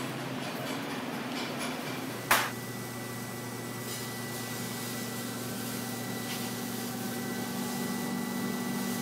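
Hydraulic bend-test press running with a steady hum and a thin high tone while it puts load on a welded test coupon. One sharp clank about two seconds in, after which the hum grows stronger.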